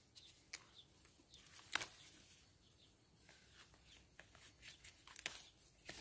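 Near silence, with a few faint scattered clicks; the loudest comes a little under two seconds in.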